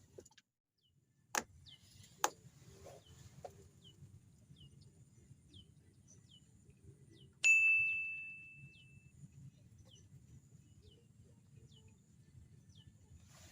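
A single loud bell-like ding that rings out and fades over about a second and a half, about halfway through. Two sharp clicks come early, and a bird calls steadily with short falling chirps, nearly two a second.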